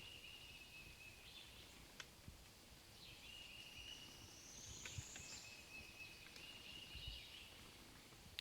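Faint outdoor ambience with a distant bird singing a high, even trill about a second and a half long, three times over. There are a couple of faint clicks.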